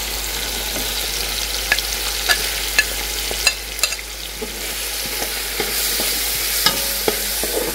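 Tomato, garlic and green-chilli masala sizzling in oil in a large aluminium pot as ground spices are tipped in and stirred. Several sharp clicks of a spoon knocking against the plate and pot, mostly in the first half and once more near the end.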